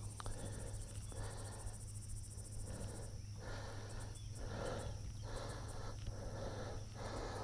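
Crickets and other insects chirring steadily in a fast high trill. Soft noisy swells come and go underneath about every half second.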